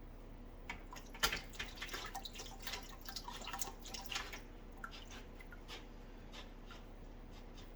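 Water running through an aquarium gravel-vacuum siphon: irregular drips and small clicks, busiest in the first half and thinning out after about four and a half seconds.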